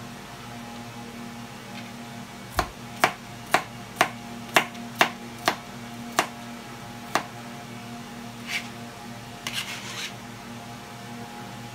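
Chef's knife chopping cucumber on a cutting board: about nine sharp knocks, roughly two a second, then a few softer scraping sounds near the end as the knife gathers the pieces.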